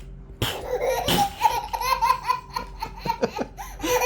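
A young child laughing hard: a long run of quick, high-pitched laughs that starts about half a second in and keeps going.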